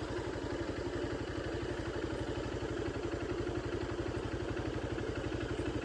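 Small motorcycle engine running steadily while being ridden, its firing pulses coming evenly.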